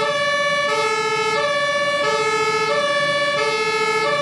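Electronic two-tone fire-engine siren, alternating steadily between a low and a high pitch about every two-thirds of a second.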